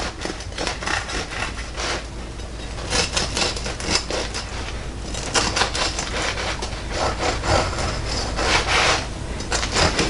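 Bread knife sawing back and forth through a large loaf of white bread, the blade rasping on the crust in uneven strokes, with a short pause about two seconds in.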